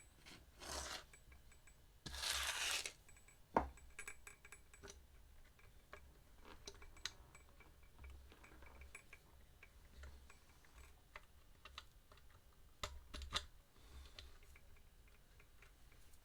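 Small metal clicks and clinks of tools and hardware being handled while guitar electronics are put back together, with a sharper click about three and a half seconds in and a few quick taps near the end. Two short hissy rushes come in the first three seconds.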